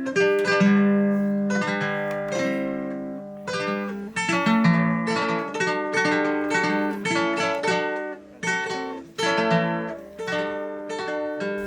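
Acoustic string instruments of the guitar family playing an instrumental passage of Colombian campesino music, with strummed chords and a picked melody, each note struck sharply and then dying away.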